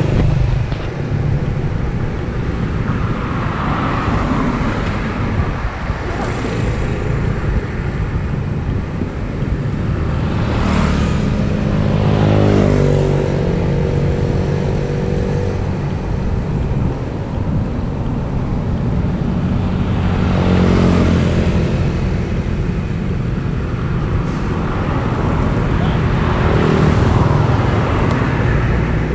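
Road traffic passing: one vehicle after another swells up and fades away over a steady low engine rumble. One passing engine's pitch falls clearly about a dozen seconds in.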